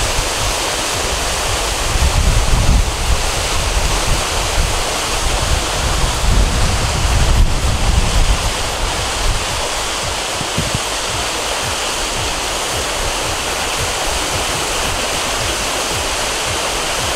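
Waterfall and a mountain stream rushing over rocks, a steady loud hiss of falling water. Wind buffets the microphone with low rumbling gusts, mostly in the first half.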